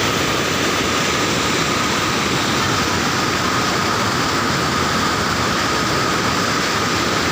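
Floodwater rushing steadily over a rocky waterfall and stream in spate, a loud even roar without breaks, with a faint steady high tone under it.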